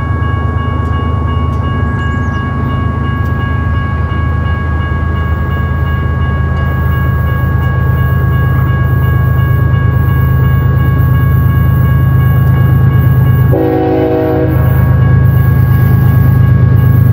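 BNSF GE ES44AC diesel locomotive passing close by, its engine giving a heavy steady rumble. Steady high ringing tones run throughout, and a short horn blast sounds about fourteen seconds in.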